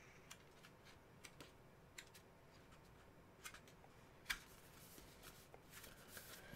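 Faint paper rustles and light flicks as the pages of a glossy booklet are turned by hand, with one sharper tick about four seconds in.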